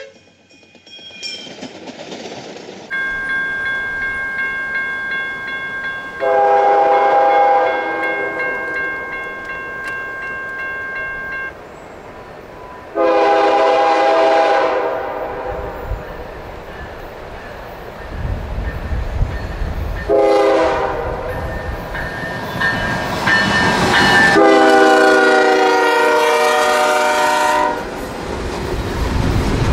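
A freight locomotive's multi-chime air horn sounds the grade-crossing signal: long, long, short, long, with the final long blast loudest. Under it the diesel locomotives rumble in as they reach the crossing.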